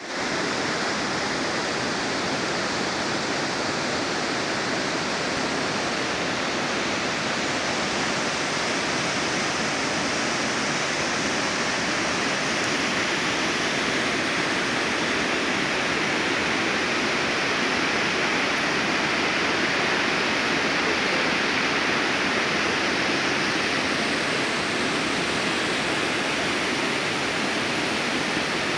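Waterfall cascading down a rocky creek bed: a steady, unbroken rush of falling water.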